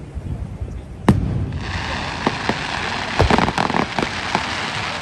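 A fireworks shell bursts with a sharp bang about a second in. Dense crackling follows, thick with small pops, like crackle stars sputtering.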